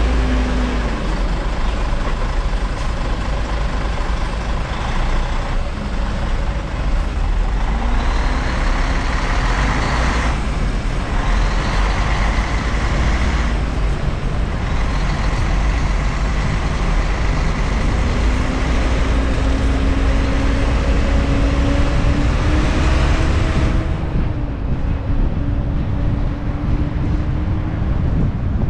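City road traffic heard from a camera on the outside of a moving car: a steady rush of tyre and traffic noise over a heavy low rumble of wind on the microphone, with the hum of passing engines, one rising slowly. The hiss drops away near the end.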